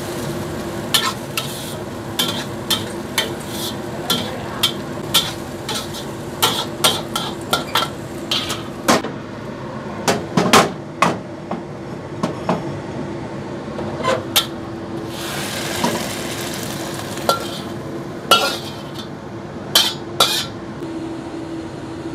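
Metal spatula stirring stir-fried water spinach and mushrooms in a wok, clanking and scraping against the pan over a steady sizzle and hum. In the second half the food is scraped out onto a ceramic plate, with fewer, scattered clinks.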